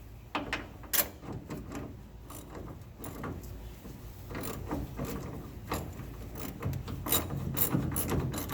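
Small metal clicks and scraping as a nut is started on a shock absorber's top mounting bolt, then a ratcheting socket wrench clicking more quickly near the end.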